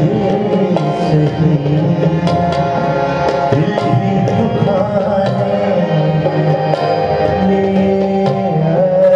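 Tabla and harmonium playing a ghazal in raga Yaman: a steady stream of crisp tabla strokes with bending bass-drum tones under held harmonium notes.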